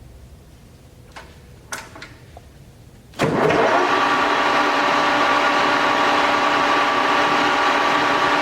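LeBlond 18-inch engine lathe: a few light clicks while the spindle is stopped, then about three seconds in it starts up suddenly, rising briefly in pitch, and runs on steadily with a humming whine.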